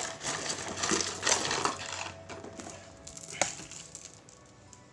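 Cardboard and plastic packaging rustling as a chainsaw chain is handled, its metal links clinking, with one sharp click about three and a half seconds in.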